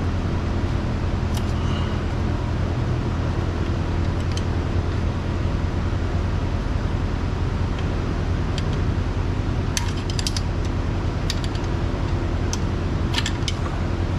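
A steady low mechanical hum with light metallic clicks and clinks of tools and parts scattered over it: a quick cluster about ten seconds in and another near the end.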